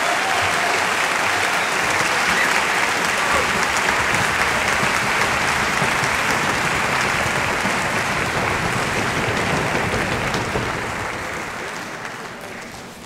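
Audience applause filling a concert hall, steady at first and dying away over the last couple of seconds.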